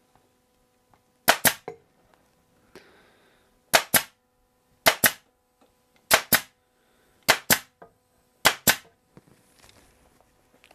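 Black+Decker staple gun firing six staples through seat fabric into a wooden chair frame, each shot a sharp double crack; after the first two, the shots come about a second apart.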